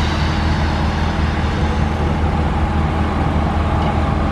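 Steady low hum and rumble of city street traffic as a Vienna tram pulls in toward the stop, growing a little louder near the end.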